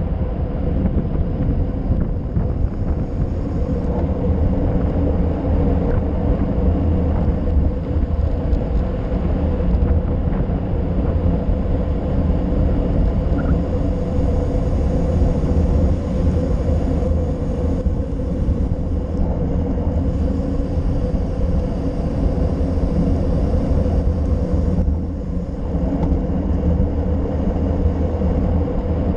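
Steady wind rush buffeting the microphone of a handlebar-mounted GoPro Session on a road bike descending fast, with the tyres rumbling on the asphalt. It eases briefly about 25 seconds in.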